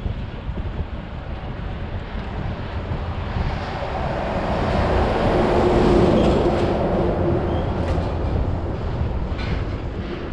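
Wind buffeting a bike-mounted microphone throughout. About halfway through, a box truck passes close in the other lane under a railway bridge: its engine and tyre noise swells, peaks and fades over a few seconds.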